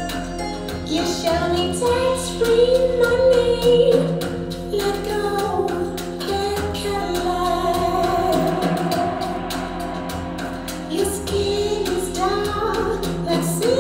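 A song with a female singer playing over open-baffle speakers with Philips full-range drivers, driven by a 6BM8 triode pure Class A tube amplifier.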